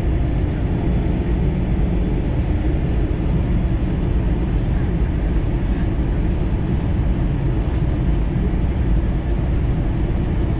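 Airbus A320 cabin noise in flight, heard from a window seat beside the wing: a steady, deep roar of the engines and rushing air, with no changes.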